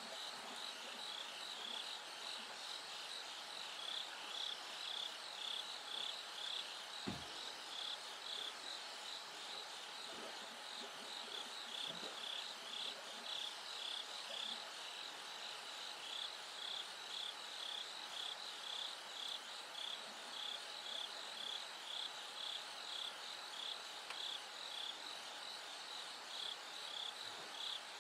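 Bell crickets chirping, a steady run of evenly repeated high, ringing chirps. A single short soft thump about seven seconds in.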